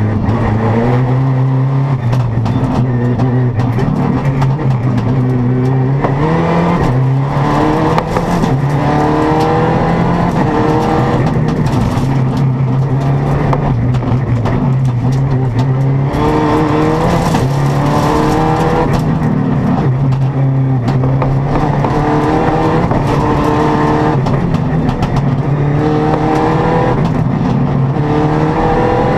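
Citroën rally car's engine heard from inside the cabin, driven hard on a stage. It rises in pitch again and again under acceleration and drops back at each gearchange or lift, with short knocks and rattles mixed in.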